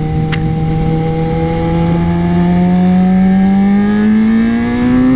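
Motorcycle engine pulling steadily under light throttle, its pitch climbing slowly as the bike gathers speed in one gear, with wind rumble underneath.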